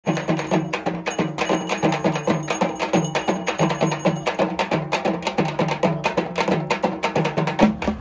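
Fast traditional drumming of ceremonial drums: an even run of several strokes a second, deep strokes that sag in pitch under sharp, high cracks.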